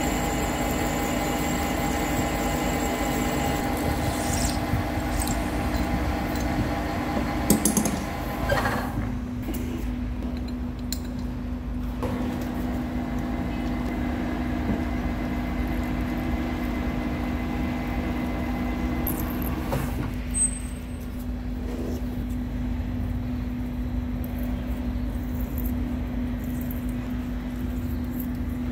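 A machine running steadily: a constant motor hum with several steady tones above it, the tones changing abruptly about eight seconds in and again about twenty seconds in.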